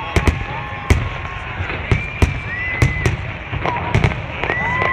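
Fireworks display going off: a string of sharp, irregular bangs, several to a second at times, over a continuous crackling rumble of bursting shells.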